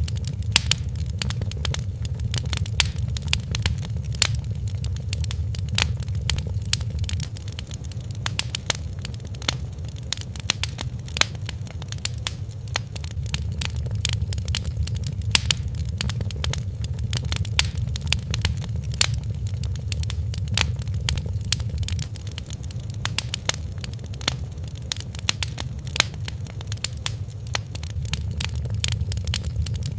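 Wood fire crackling in a fireplace, with frequent irregular sharp pops and snaps over a steady low rumble.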